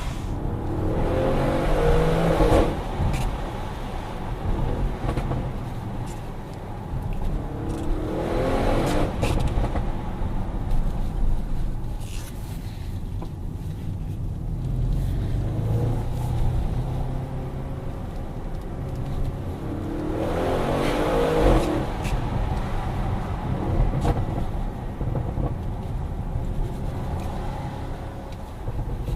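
Audi RS6 C7 Performance's twin-turbo 4.0 V8 and exhaust under way, with three surges of acceleration that rise in pitch and loudness, about a second in, about eight seconds in and about twenty seconds in. Between the surges the engine runs steadier and quieter.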